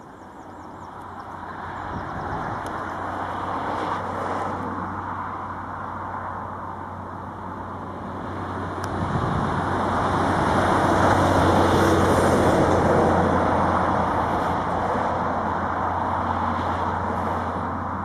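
Boeing 737-800's CFM56 jet engines running as the airliner moves along the airfield: a steady roar over a low hum, building to its loudest about two-thirds of the way through and easing slightly near the end.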